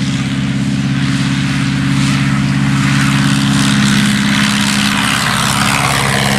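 de Havilland Tiger Moth biplane's four-cylinder inline engine and propeller running at full takeoff power, a steady drone that gets louder over the first couple of seconds.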